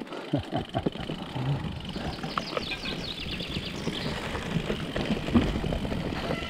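Mountain bike descending a dirt forest singletrack: continuous tyre noise on the dirt with irregular knocks and rattles from the bike, heaviest in the first second.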